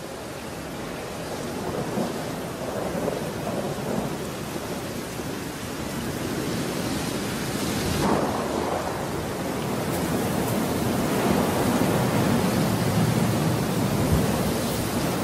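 Thunderstorm: steady rain that grows louder, with low rumbles of thunder, one of the strongest about eight seconds in.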